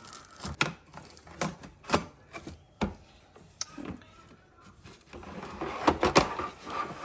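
Hard clicks and knocks of an espresso machine's parts being handled and fitted, with a burst of clattering about six seconds in.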